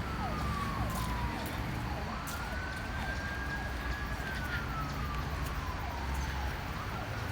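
Emergency-vehicle siren wailing: a single tone that slowly falls, swings back up about two seconds in, and falls again, over a low rumble.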